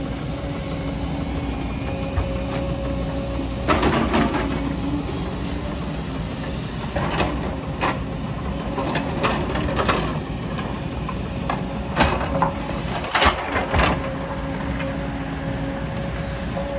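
JCB crawler excavator's diesel engine running with a steady hum, while its steel bucket digs into rocky soil: stones scrape and clatter against the bucket in several short bursts, the loudest near three-quarters of the way through.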